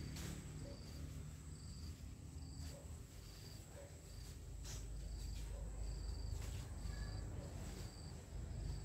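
Insects chirping: a short high chirp repeating a little more than once a second over a steady high whine, with a few sharp crackles, likely from brush being stepped on or handled.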